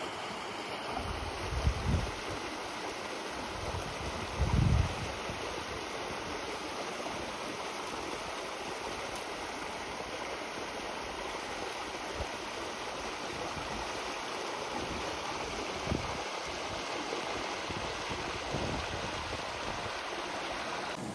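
Mountain stream running over rocks: a steady rush of water, with two brief low thumps about two and four and a half seconds in.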